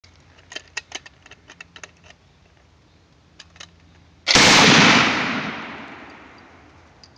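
M1918A2 Browning Automatic Rifle firing a short full-auto burst of .30-06 about four seconds in, loud for under a second and then echoing away over the next two seconds. A few faint clicks come before it.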